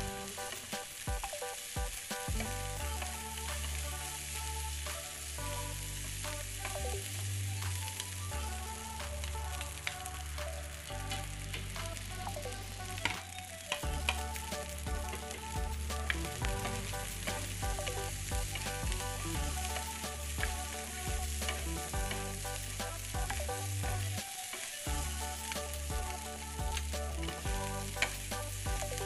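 Egg fried rice sizzling in hot oil in a frying pan, stirred and tossed with a wooden spatula that scrapes and taps against the pan.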